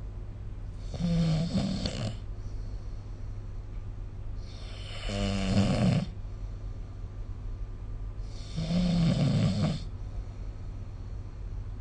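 A person snoring in sleep: three snores, each about a second and a half long and spaced about four seconds apart, over a steady low hum.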